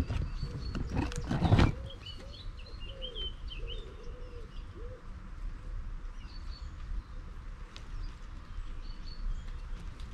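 Rustling and knocking of a hand handling the camera close to the microphone for the first second and a half, the loudest part. Then small birds chirp now and then over a steady hiss.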